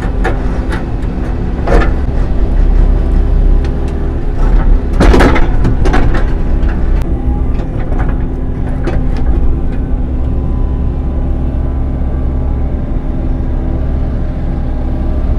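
Excavator diesel engine running steadily, with several sharp knocks and clatters of concrete being broken and moved. The loudest come about two and about five seconds in.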